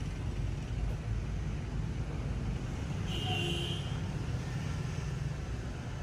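Steady low outdoor background rumble, with a brief high tone about three seconds in.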